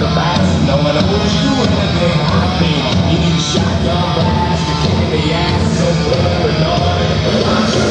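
Loud rock music with a singing voice.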